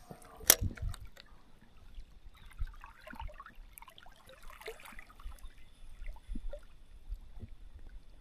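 Spinning reel retrieving a cast spinner lure: a sharp click about half a second in, then faint scattered small clicks and rustles over a low wind rumble on the microphone.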